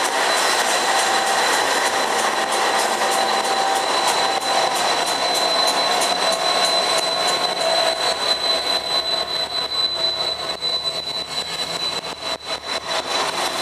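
Diesel-electric locomotives of a freight train (NR, AN and G classes) passing close, engines running, wheels rolling on the rails, with a steady high-pitched whine over the rumble. A run of sharp clicks near the end.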